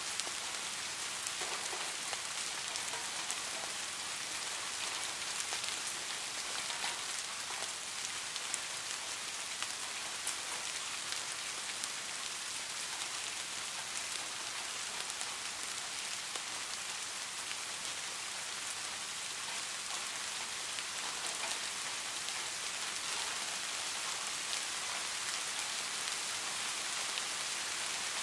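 Steady rainfall: an even hiss of many drops, with scattered sharper ticks of single drops hitting a surface.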